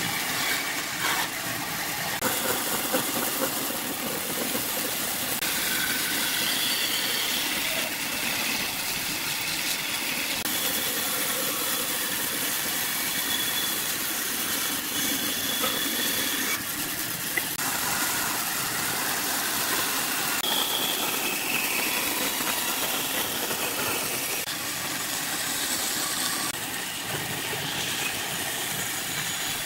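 Bandsaw running with its blade cutting through pine boards: a steady machine noise with a few higher whines, changing abruptly several times.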